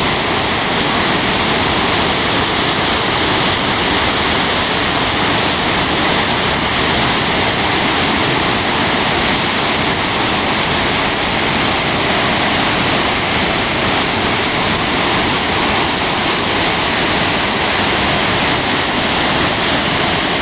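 The Spokane River, near flood stage, pouring over a dam spillway into churning white water: a loud, steady rush of falling water.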